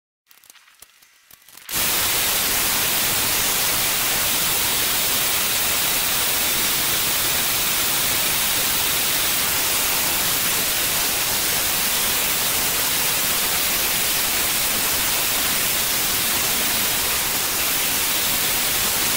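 Belt grinder with a coarse 24-grit belt grinding a steel bar, grinding a raised ridge down to flatten it: a loud, steady hiss that starts abruptly about two seconds in.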